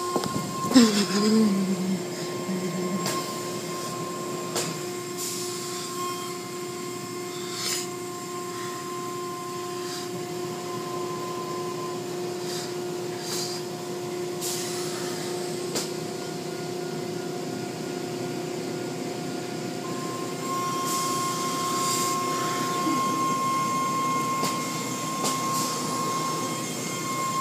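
Car wash machinery running: a steady mechanical hum with high whining tones, one of which drops out for several seconds mid-way and then returns, and a few sharp knocks in the first seconds.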